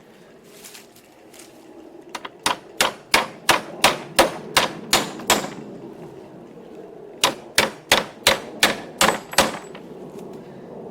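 Hammer tapping bolts through a canoe seat's spacers: two runs of sharp metallic taps, about three a second, with a pause of a couple of seconds between them.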